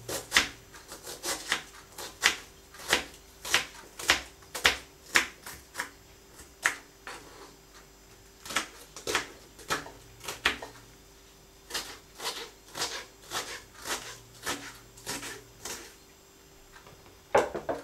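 Kitchen knife finely dicing onion on a cutting board: a steady run of sharp chopping knocks, about two to three a second, with a brief pause near the middle.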